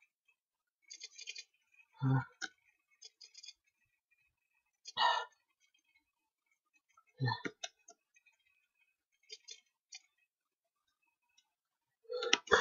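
A man tickling inside his nose with a rolled paper-towel tip: three short catches of breath about two and a half seconds apart, between faint clicks, as a sneeze builds without coming. A louder burst begins near the end.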